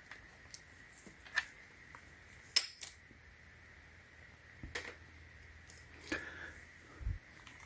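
Handling of a 41mm quick-release tripod plate and tripod head: a scatter of light clicks and taps, the sharpest about a second and a half and two and a half seconds in.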